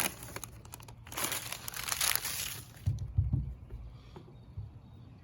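Wax paper crinkling under a hot clothes iron being pressed and worked over a plastic canoe hull, for about a second and a half, followed by a few dull low bumps.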